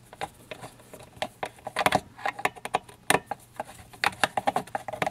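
Flat-blade screwdriver turning a screw into the whirlpool pump's control-box housing cover. Irregular small clicks and scrapes of the tool and hands on the housing, with a few louder clicks about two and three seconds in.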